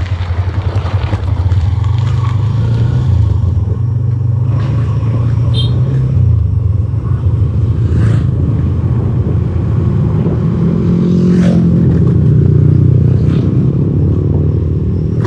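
Yamaha Exciter 150's single-cylinder engine running on the move. It holds a steady low hum, rises in pitch as it speeds up about two-thirds of the way in, then eases back.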